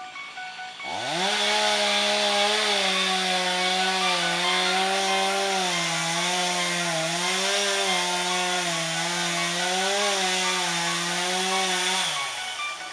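Chainsaw revving up about a second in and cutting deep into the trunk of a dead tree, its speed dipping slightly now and then under load, then winding down near the end.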